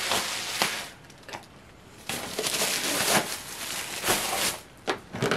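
Paper and plastic gift wrapping rustling and crinkling as presents are handled. There is a burst in the first second, a short pause, then a longer stretch of crinkling, with a few light knocks near the end.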